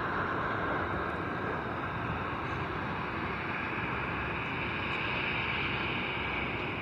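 Jet airliner on landing approach: a steady engine roar with a hissing upper band that shifts gradually higher in pitch over the seconds.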